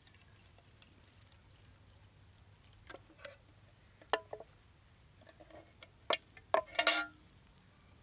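A few light knocks and clinks of small hard objects being handled, starting about three seconds in, the loudest a brief ringing clink near the end.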